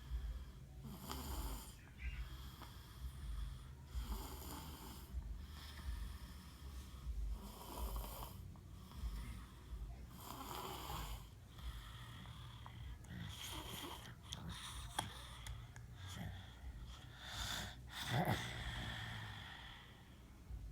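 A small boy snoring in his sleep, one rasping breath about every three seconds.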